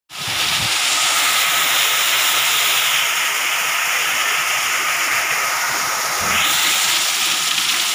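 Heavy rain falling steadily, a dense even hiss, with runoff pouring off the roof edge onto the ground.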